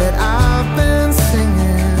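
Music with a steady beat: sustained melody notes over a constant bass line, with drum hits about every half second.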